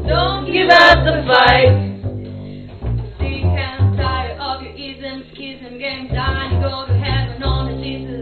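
Upright double bass playing a bass line of repeated low notes under a singer's voice, in live unamplified performance.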